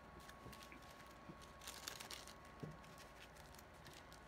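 Faint crinkling of a thin clear plastic sheet being handled, with one soft tap about two and a half seconds in.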